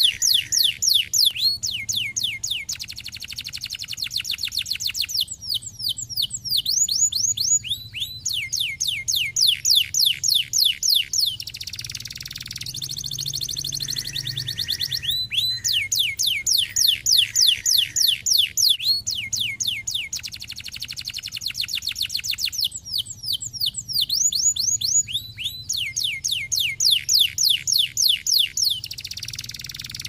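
Domestic canary singing: long trills of fast, steeply falling whistled notes, about eight a second, broken by short buzzy passages.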